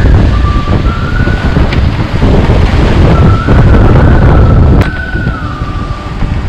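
Gale-force wind buffeting the microphone aboard a sailboat, with a thin whistle that rises and falls, and breaking seas rushing past the hull. The wind eases a little about five seconds in.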